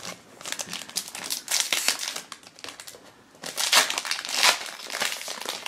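Foil wrapper of a trading card pack crinkling in bursts as it is handled and opened by hand.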